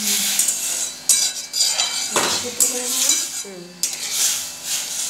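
A metal spatula scrapes and clinks against a metal kadai while stirring lentils in water, with a few sharper knocks of the spatula on the pan.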